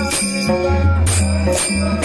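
Devotional bhajan gajar music: harmonium with a pakhawaj drum and small hand cymbals struck in a steady beat about twice a second.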